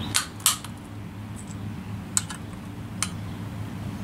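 .223 cartridges being pressed one at a time into an AR-15 magazine, each round clicking sharply as it snaps in under the feed lips, a few separate clicks spaced irregularly.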